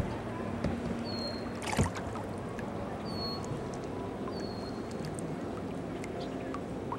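Water lapping steadily against a small boat's hull, with one sharp knock about two seconds in. A few short, high, falling bird chirps sound over it.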